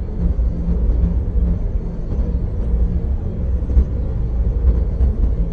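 A loud, steady low rumble with a hiss above it and a faint hum that comes and goes: a dark ambient drone.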